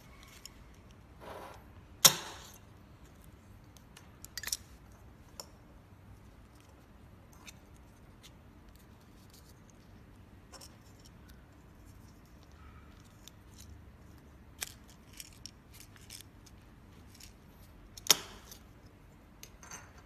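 Hard plastic EAS golf security tags being handled and set down on a desk: scattered clicks and knocks, loudest about two seconds in and again near the end, with fainter ticks between.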